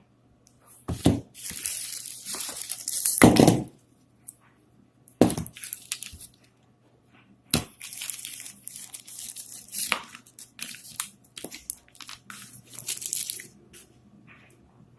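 Phone packaging being unboxed by hand: plastic wrap and cardboard rustling and tearing in stretches, with several sharp knocks and thumps.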